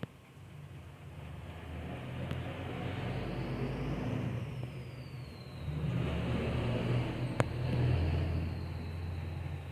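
Dog snoring in its sleep: two long, low snoring breaths, the second louder, with a single sharp click near the end of the second.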